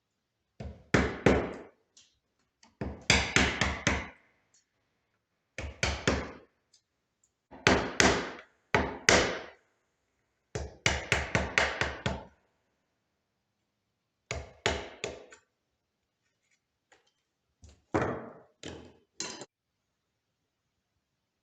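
Hammering on wood: quick runs of several blows at a time, about five a second, with short pauses between the runs.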